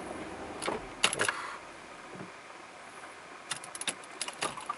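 A few light clicks and rattles over a faint steady hiss: one just over half a second in, a quick cluster about a second in, and another cluster near the end.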